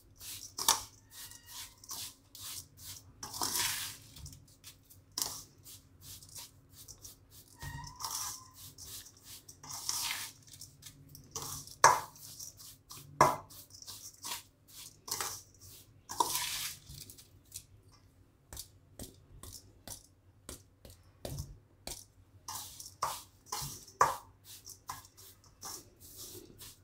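Metal spoon stirring a coarse spice mix in a stainless steel bowl: irregular clinks and scrapes against the bowl, with a few longer scraping strokes.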